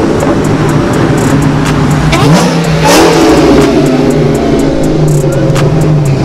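Dodge Challenger SRT and Charger V8 engines running loud as the cars pull away, with a sharp rising rev about two to three seconds in.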